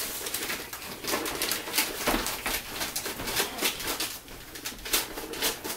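Gift wrapping paper crinkling and rustling in quick irregular crackles as a toddler's hands slap and tug at a wrapped present, with a baby's soft cooing.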